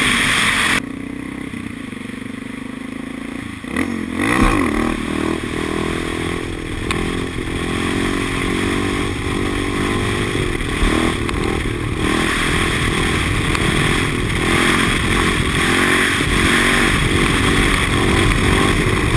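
Suzuki DR650's single-cylinder four-stroke engine running under way: it drops to a quieter run about a second in, changes pitch around four seconds in, then pulls steadily louder through the rest.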